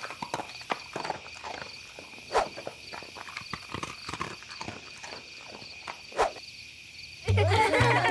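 Cartoon sound effects: a run of irregular light clicking taps, with two short downward-sliding calls, one about two and a half seconds in and one about six seconds in. Background music comes in near the end.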